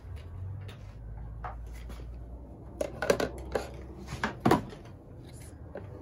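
Hard plastic toy-kitchen pieces knocking and clacking as they are handled and fitted onto a plastic play sink, with a cluster of sharp knocks about three seconds in and the loudest a little after four seconds.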